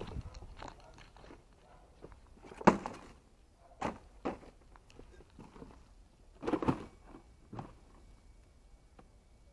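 Scattered knocks and rustles of paper and plastic bags being handled and set down beside a plastic bin. A sharp knock comes about two and a half seconds in, and a cluster of knocks near seven seconds.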